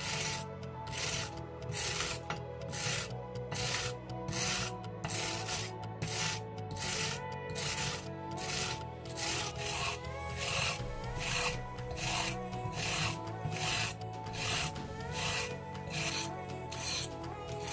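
Hand wire brush with steel bristles scrubbing rust off old iron knuckles in back-and-forth strokes, about two a second, each stroke a scratchy hiss.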